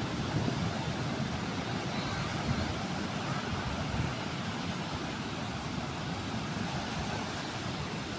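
Steady low rumble of wind and surf at the beach, with wind buffeting the microphone.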